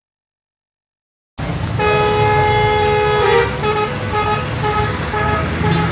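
Indonesian 'telolet' musical bus horn on a Subur Jaya bus, starting abruptly about a second and a half in: a long held chord, then a quick run of short notes, about three a second. A low engine rumble runs underneath.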